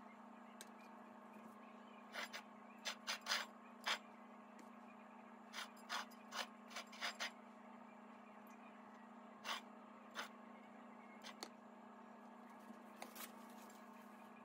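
Faint, scattered clicks and taps of a small utensil against a ceramic cake plate as whipped cream is smoothed around the base of a cake, with the plate handled on the countertop. The clicks come in loose clusters, over a steady low hum.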